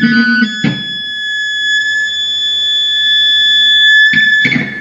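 Replica Gibson Les Paul Custom's pickup feeding back through a Marshall guitar amp: a steady, high-pitched squeal of several pure tones held together, cutting off near the end. The pickup is microphonic and picks up too much interference, a sign that the guitar's cavities need shielding.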